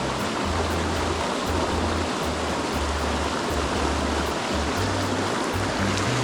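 Rushing mountain stream water, with background music whose low bass notes step along steadily underneath.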